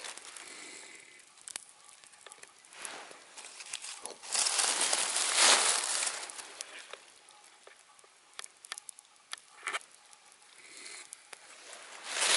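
Wood campfire crackling, with scattered sharp pops, and two louder stretches of rustling noise lasting a second or two, one mid-way and one starting near the end.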